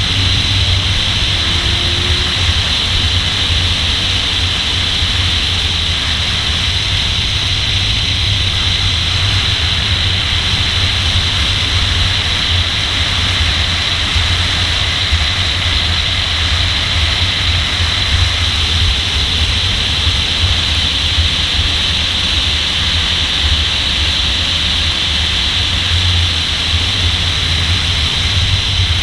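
Steady rushing wind and road noise of a car driving at speed on a race track, over a low, even drone, with no clear rise and fall of the engine revs.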